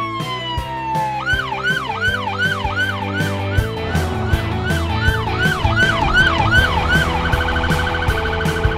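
Police car electronic siren. A falling wail gives way about a second in to a yelp of quick rising-and-falling sweeps, about two and a half a second, which switches near the end to a fast high-pitched warble. Background music with a steady beat plays underneath.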